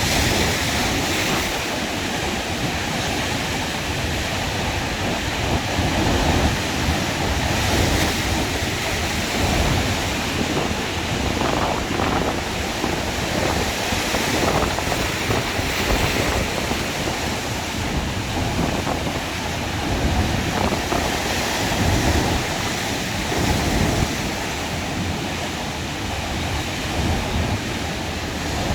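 Sea waves washing onto the shore in a steady rush, with wind buffeting the microphone in irregular low gusts.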